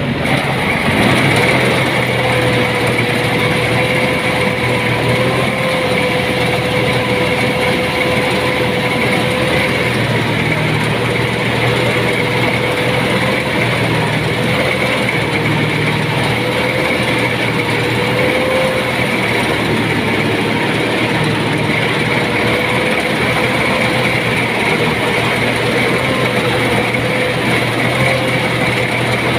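Rice thresher machine running steadily under power: an engine drone with a constant high whine over it.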